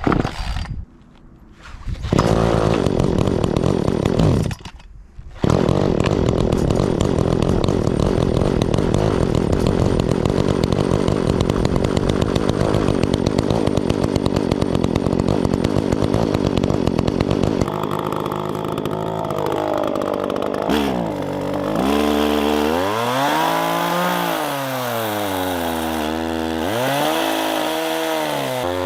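Two-stroke chainsaw running at full throttle, cutting into logs, breaking off twice briefly in the first few seconds. From a little past halfway the engine note rises and falls repeatedly as the throttle is eased and opened again.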